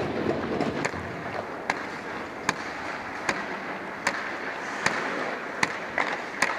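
Ice hockey rink noise heard from the goal, a steady hiss, with a sharp tick repeating evenly about every four-fifths of a second.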